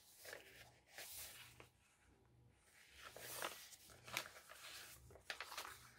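Faint rustling and handling of paper as the pages of a handmade junk journal are turned and touched, in several short bursts.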